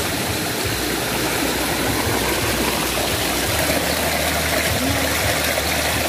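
Shallow mountain stream rushing and splashing over rocks in a small cascade, a steady rush of water.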